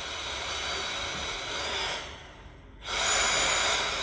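CleanSpace 2 powered respirator's battery fan running with a steady airy whir. About two seconds in it fades away, then just under a second later it cuts back in suddenly and louder: the breath-responsive fan adjusting its airflow to the breathing demand.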